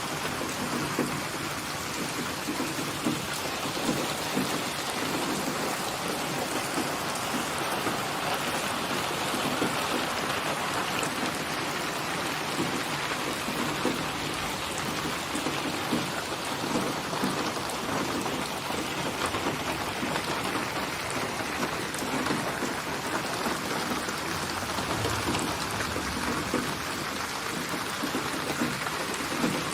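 Steady rain falling on a surface, an even hiss with individual drops standing out here and there.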